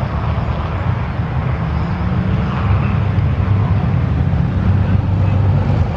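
Steady low rumble of vehicle traffic.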